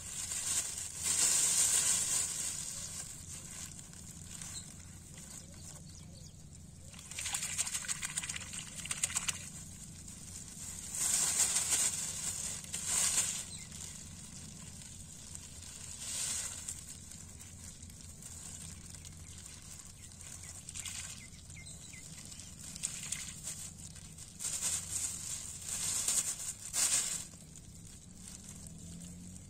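Thin plastic carrier bag rustling and crinkling in short bursts, a dozen or so times, as it is handled, over a faint low steady hum.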